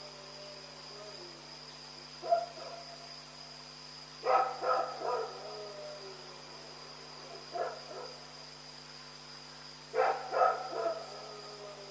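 Dog barking in irregular bouts: a single bark, a quick run of three, another single bark, then three or four in quick succession near the end.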